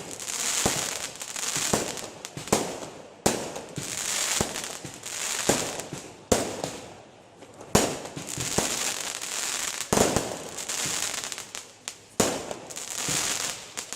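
Aerial fireworks display: shells bursting with a sharp bang every second or two, each followed by a long crackling hiss.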